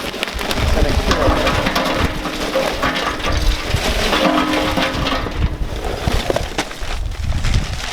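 Pecan wood pellets poured into the metal charcoal hopper of a Masterbuilt Gravity Series 560 smoker: a dense, continuous rattling clatter of many small pieces hitting metal and each other.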